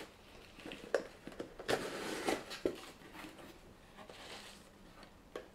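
A small kraft cardboard box being opened by hand, and the packing inside rustled. There is a sharp tap about a second in, then a burst of rustling with a couple of cardboard clicks, and softer rustling later.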